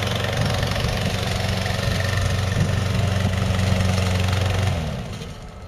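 Hybrid Goat 22T remote-control slope mower's gas engine running steadily under mowing load. About five seconds in it winds down in pitch and cuts out: the mower stalled because its track bogged against a deep tractor rut.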